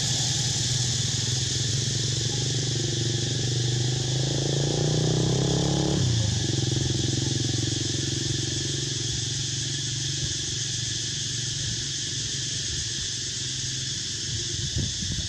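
A motorbike engine passing: its note rises, drops sharply about six seconds in, then fades. Insects keep up a steady high buzz throughout.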